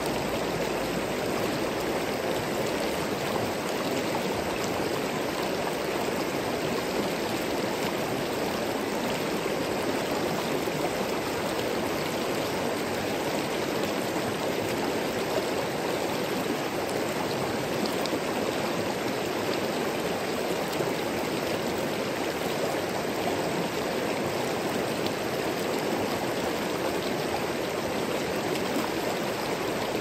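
Shallow river flowing over rocks: a steady rush of water with no breaks.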